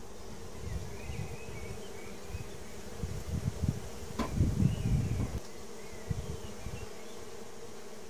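A colony of honeybees in an opened wooden Langstroth hive humming steadily. Around four seconds in there is a sharp knock and a couple of seconds of rumbling handling noise as the wooden lid comes off the box.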